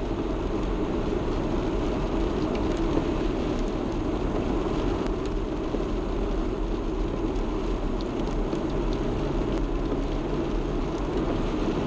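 Steady car cabin noise from the engine and tyres, a low even rumble with a faint engine hum.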